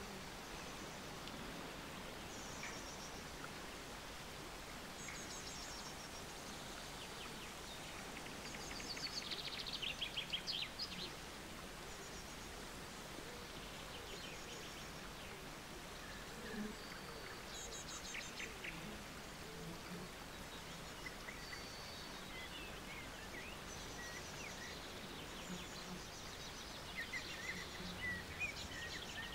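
Birds singing, with short chirps and quick trills at intervals over a steady soft hiss of outdoor background noise. A louder run of trills comes about ten seconds in, and more chirping near the end.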